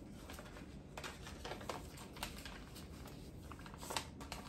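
Soft scattered taps and rustles of hands working clear plastic cups of potting soil and handling a paper seed packet while sowing seeds, with a sharper click about four seconds in.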